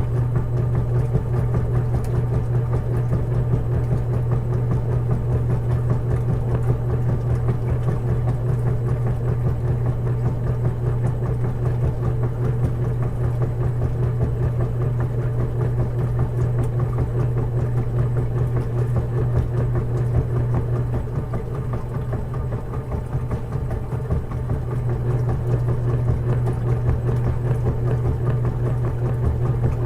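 Washing machine running with a steady low mechanical hum, easing slightly in level about two-thirds of the way through.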